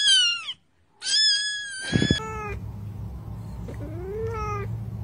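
Cat meowing: two loud, high-pitched cries in the first two seconds, the first falling in pitch and the second drawn out. Then come a few shorter meows over a steady low rumble.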